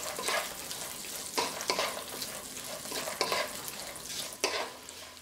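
Peanuts, cashews, chana dal and raisins sizzling as they fry in ghee in a wok, with a wooden spatula scraping and tossing them in a few irregular strokes.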